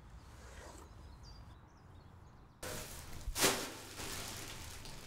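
Quiet background ambience that changes suddenly to a steadier hiss about two and a half seconds in, followed shortly by one short, breathy burst, a heavy exhale from a distressed young man.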